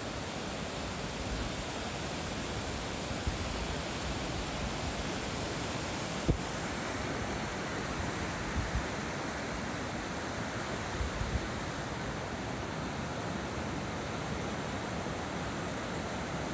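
Ocean surf washing onto a sandy beach, a steady hiss of breaking waves, with a few brief low thumps; the sharpest is about six seconds in.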